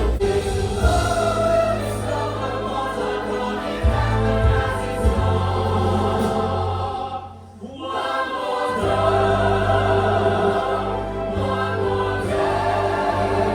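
Music with a choir singing held chords over a low bass. It fades almost to a pause about seven seconds in, then swells back.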